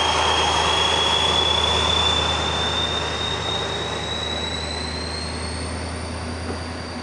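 Two SNCF BB 67400 diesel-electric locomotives passing slowly at a platform: a steady low diesel rumble under a high whine that slowly rises in pitch. The sound grows fainter from about two seconds in as the locomotives move on.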